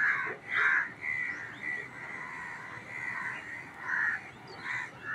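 Crows cawing, a long irregular run of short harsh caws one after another.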